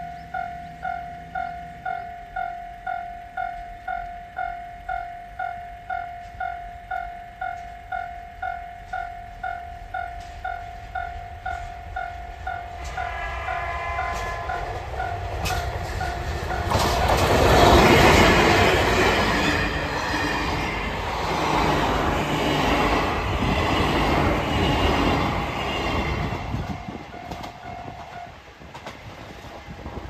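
Level-crossing warning bell pulsing about twice a second as a train approaches. A short horn sounds a little before halfway. Then a diesel locomotive and its coaches pass, loudest just past halfway, and the bell stops near the end.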